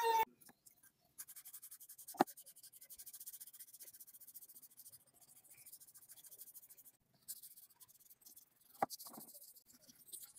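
Knife handle being sanded by hand with an abrasive pad, faint quick back-and-forth rubbing strokes with a pause in the middle. A light knock comes about two seconds in and another near the end. A rotary tool's whine cuts off at the very start.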